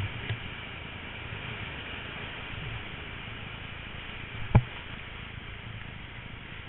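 Whitewater rapids rushing steadily around a kayak, with a sharp knock about four and a half seconds in and a fainter one just after the start.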